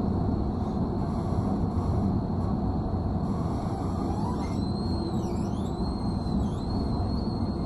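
Tram running, heard from inside the car: a steady low rumble, with a faint high whine that dips and rises in pitch several times over the second half.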